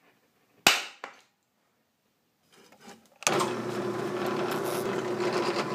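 A sharp tap and a lighter click, then from about three seconds in a drill press running steadily as it drills a pilot hole into steel.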